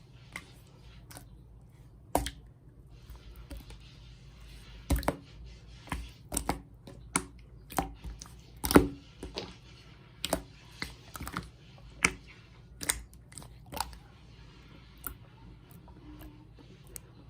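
A series of irregular sharp taps and clicks, about fifteen over the stretch and closest together in the middle, over a faint steady hiss in a small room.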